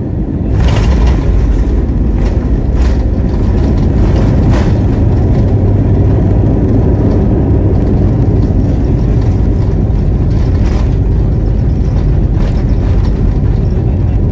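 Airbus A320's CFM56-5B turbofans on the landing roll, heard inside the cabin: the engine noise rises to a loud, steady roar about half a second in, typical of reverse thrust being applied. A few sharp knocks and rattles come from the cabin as the aircraft rolls over the runway, most of them in the first five seconds.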